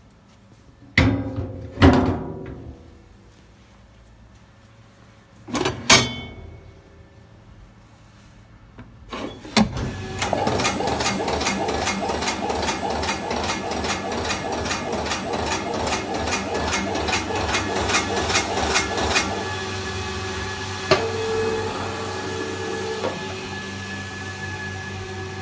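A couple of loud clunks, then about ten seconds in a Treif ARGON industrial dicer starts up and runs with a steady, fast, evenly repeating mechanical clatter.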